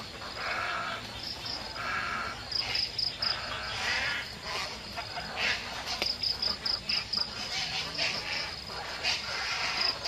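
A roost of white egrets calling again and again from the trees, over an insect chirring in rapid high pulses.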